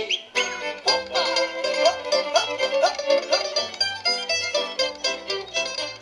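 Live folk band playing a brisk instrumental tune: quick plucked-string runs and fiddle over a double bass.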